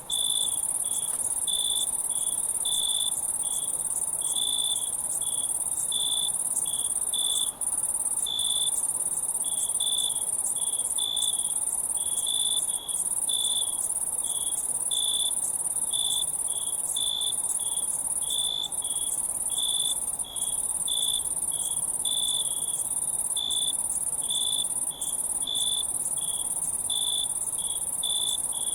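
Crickets chirping in a night chorus: a dense, steady high-pitched trill with a lower chirp pulsing about twice a second over it, broken by a few very brief dropouts.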